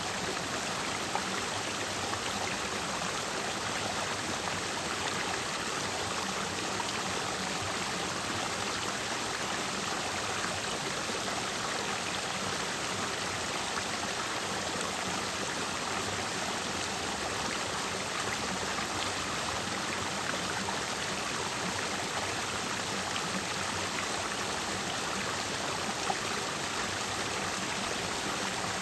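Clear mountain stream running over rocks, a steady rushing and splashing of water.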